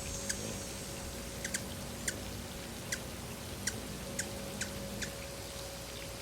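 Hummingbird chip calls: about nine short, sharp chips at irregular intervals, over a steady faint hiss.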